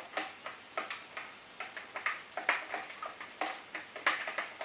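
A spoon clicking and tapping against a bowl as slime is stirred, several irregular knocks a second.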